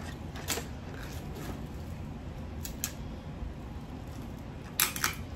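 Hard Jonah crab shells cracking as they are broken and bitten into: a few sharp cracks spread out, with the loudest cluster near the end.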